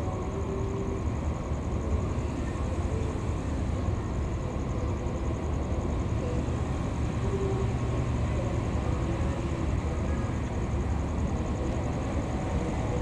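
Diesel-electric locomotive hauling a passenger train, its engine running with a steady low rumble that grows slightly louder partway through as it approaches.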